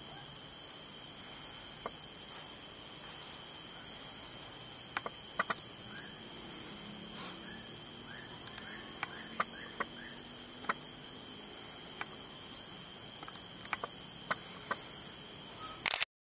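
Crickets chirring in a steady night chorus at several high pitches, with a few faint clicks scattered through. The sound cuts off abruptly near the end.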